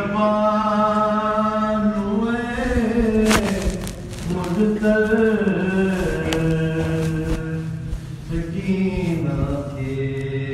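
Sindhi salam chanted by one voice, holding long drawn-out notes that bend and turn in pitch between the words, over a steady low tone. A couple of short sharp knocks fall in the middle.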